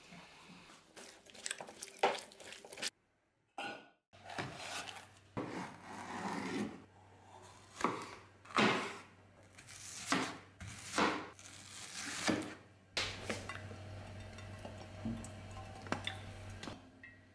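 A long steel knife cutting a bell pepper on a wooden cutting board: a string of sharp cuts about a second apart. It is preceded by a few clinks of kitchenware and followed, near the end, by a steady low hum.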